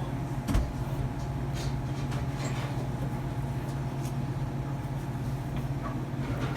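A steady low mechanical hum, like a motor or ventilation running, with a few faint clicks and a soft low knock about half a second in.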